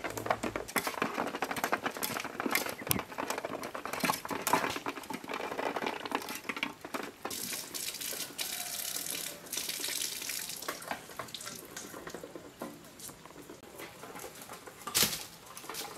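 Muscovy ducks dabbling their bills in a basin of water, a dense patter of wet clicks. About seven seconds in, water runs from an outdoor tap through a sieve as it is rinsed by hand for a few seconds. There is a single sharp knock near the end.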